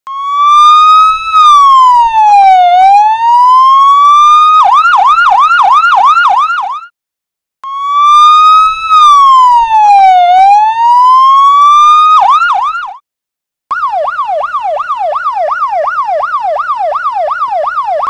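Electronic siren from a push-button toy fire-rescue truck: a slow falling-then-rising wail that breaks into a fast yelp, played twice with a short break between. After another short gap, a quieter, quicker repeating falling siren pattern plays to the end.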